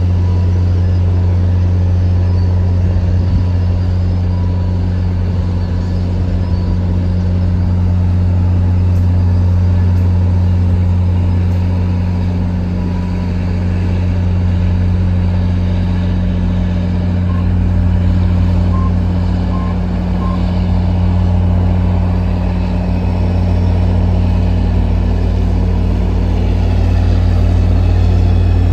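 Commuter train's diesel locomotive idling, a steady low drone. Four short beeps sound about two-thirds of the way in.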